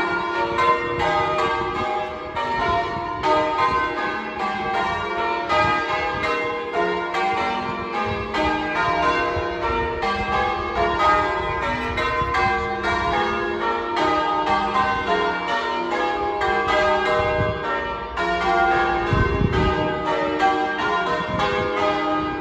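Church bells being change-rung: an unbroken, evenly paced succession of bell strokes, each ringing on under the next.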